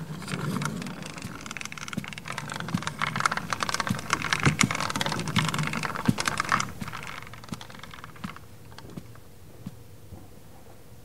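A wheeled metal clothes rack rolled across the floor, its hangers and casters rattling in a dense run of clicks that builds, peaks in the middle and dies away about eight seconds in.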